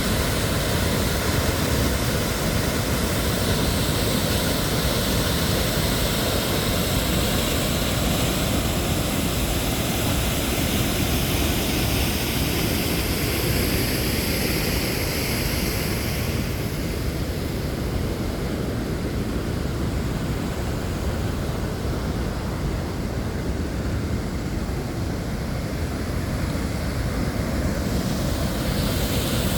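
Waterfall roaring steadily: a loud, even rush of falling water, heaviest in the low end, whose higher hiss thins out a little over halfway through.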